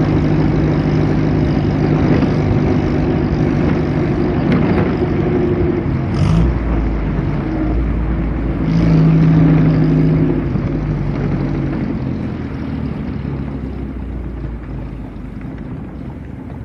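1929 Bentley's vintage engine running as the car is driven, its note shifting in pitch, with a short sharp noise about six seconds in and a louder stretch a few seconds later. The sound then gradually fades away toward the end.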